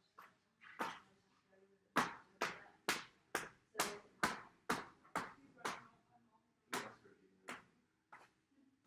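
A paint-covered ball hitting a sheet of paper taped to a wall, over and over: about fifteen sharp slaps, quickening to about two a second through the middle and spacing out again near the end.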